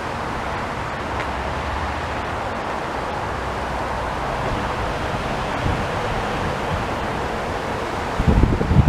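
Steady distant vehicle rumble, with wind buffeting the microphone in strong gusts near the end.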